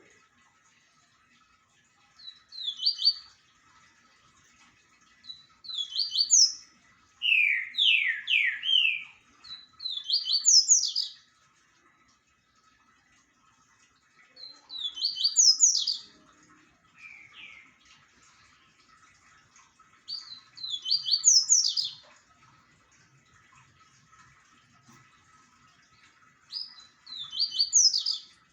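A papa-capim seedeater singing: about seven short phrases of quick, high, sliding notes, each lasting one to two seconds and separated by pauses of a few seconds. One lower, louder run of notes comes about eight seconds in.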